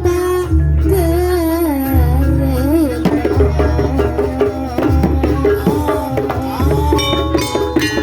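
Live Jaranan Banyuwangi ensemble music: drums keep a heavy beat roughly every second and a half under a wavering lead melody, which gives way about three seconds in to quick ringing gamelan-style notes.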